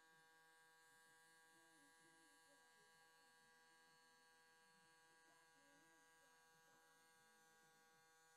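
Near silence, with only a faint, steady electrical hum.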